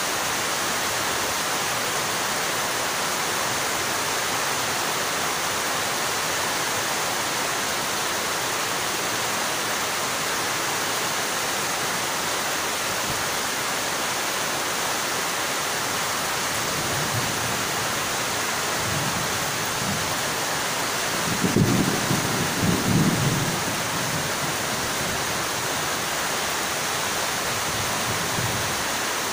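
Heavy rain falling steadily, an even hiss with no break. About 21 seconds in, a brief low rumble rises over it for two or three seconds.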